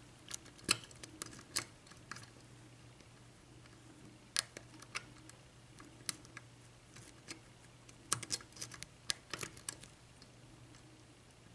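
Irregular small metal clicks and ticks of a lock pick working the pins of a pin-tumbler lock under tension, in loose clusters, as the picker hunts for a suspected spool pin. A faint steady low hum underneath.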